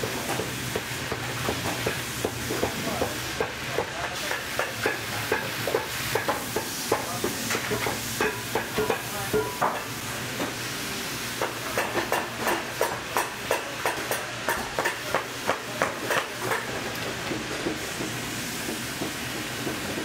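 Leather being skived: a series of short scraping, cutting strokes, a few a second and busiest in the second half, over a steady low hum.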